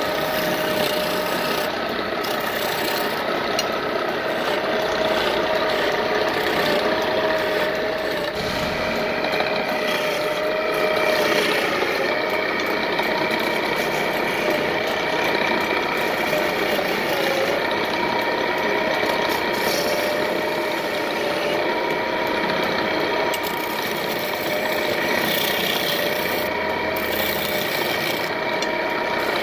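Hand chisel cutting a wooden bed leg spinning on a wood lathe: a continuous scraping of steel on turning wood, with steady, slightly wavering high tones running through it.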